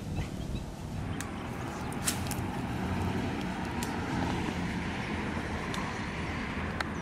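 Road traffic going by: a steady rush of passing vehicles that swells a little around the middle, with a few faint sharp clicks.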